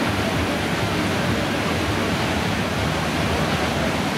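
Ocean surf breaking and washing onto a sandy beach, a steady even rush.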